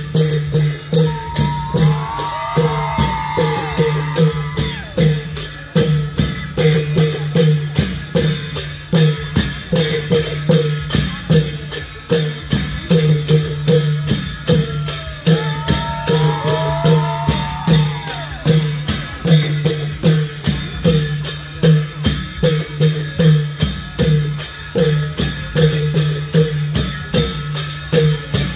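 Klong yao long-drum ensemble playing a steady, fast beat of low drum strokes. High rising-and-falling calls come over the drumming twice, a couple of seconds in and again around the middle.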